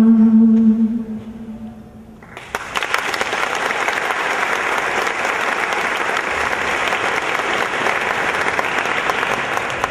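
A woman's voice holding the final sung note of a Persian song, which fades out over the first two seconds. About two and a half seconds in, an audience breaks into applause that carries on steadily.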